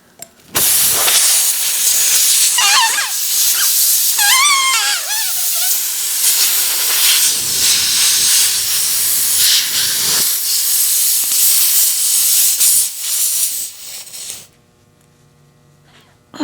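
Air hissing loudly out of a punctured tire through the nail hole as the plug needle is worked in it, with two short wavering squeals about three and four and a half seconds in. The hiss cuts off about a second and a half before the end.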